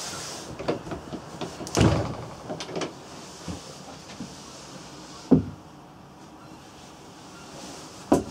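A wooden cabin door on a yacht being opened and handled: several knocks and thumps, the loudest about two seconds in, with a sharp thump about five seconds in and another near the end.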